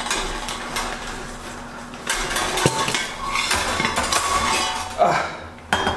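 A thin metal utensil scraping and clinking against the inside of a stainless steel pot while a baked loaf of bread is loosened and turned over in it, with brief metallic ringing.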